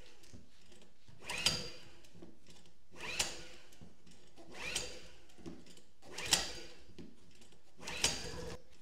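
Recoil pull-starter of a Hyundai HY2000si portable inverter generator being yanked five times in quick succession, about every second and a half, each pull a short whirr of the cord and engine turning over without catching, the sign of too little fuel reaching it.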